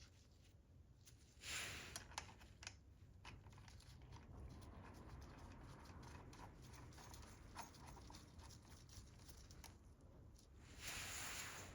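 Faint scattered clicks and taps, with two short hisses: one about a second and a half in, one near the end.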